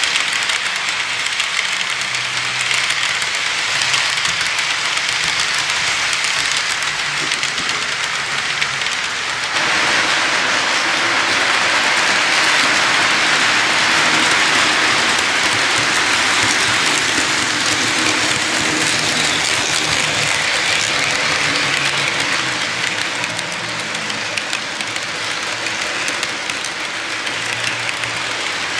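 Model freight cars rolling along the layout track: a steady rushing of small metal wheels on the rails with a faint low hum beneath, growing louder about nine to ten seconds in.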